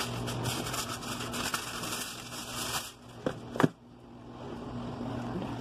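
A sheet of aluminium foil being handled, rustling and crinkling, with two sharp clicks a little past three seconds in.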